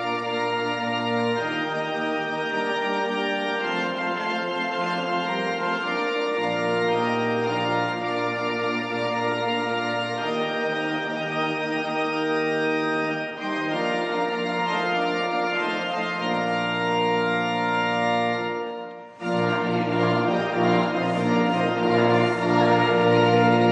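Organ playing a hymn in sustained chords, with low bass notes that come and go. It breaks off for a moment about 19 seconds in, then comes back fuller.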